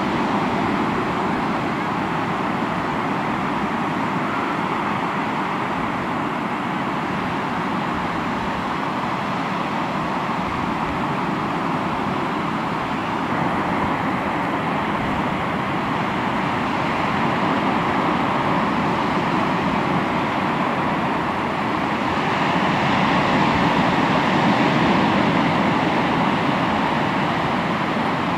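Sea waves breaking and washing on the shore: a steady surf that swells louder in the last third.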